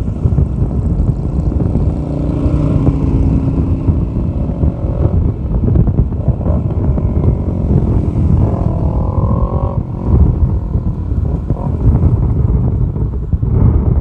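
Sport motorcycle engines running close by, with a rev that rises and falls about two-thirds of the way in, over a heavy low rumble of road and wind noise.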